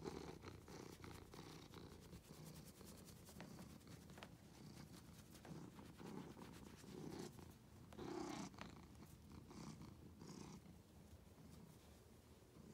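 Orange tabby cat purring close to the microphone, faint and low, swelling and easing about once a second, with scattered soft clicks and rustles.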